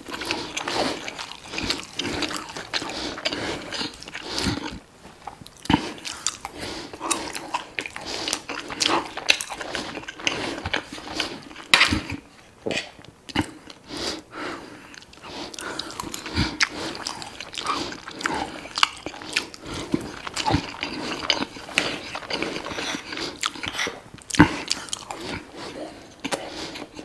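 Close-miked chewing and biting of Greek burger patties and rice, wet mouth sounds going on irregularly, with a few sharp clicks of cutlery on the plate.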